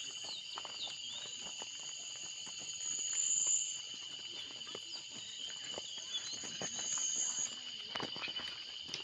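Steady high-pitched chorus of insects in the trailside scrub, with footsteps crunching on a stony dirt trail.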